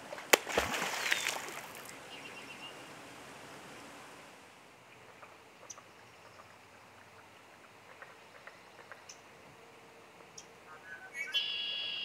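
Beaver slapping its tail on the pond surface: one loud sharp smack followed by about a second and a half of splashing, the beaver's alarm signal. Faint water ticks follow, and a bird calls a short run of high notes near the end.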